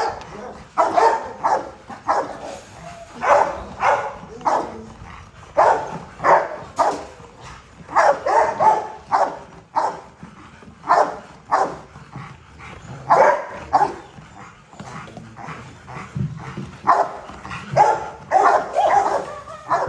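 Dog barking in short, repeated barks, often two or three close together, with a brief lull a little past the middle.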